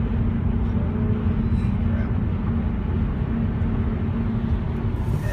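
Steady low drone of road and engine noise inside a moving car's cabin at highway speed.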